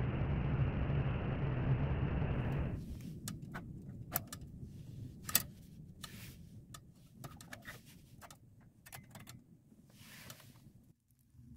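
A butane gas torch blowing a steady rush of flame into the firebox of a MESETA mini wood stove, cut off abruptly about three seconds in. Then the kindling crackles and pops in the stove, with metal clicks as its small door is shut.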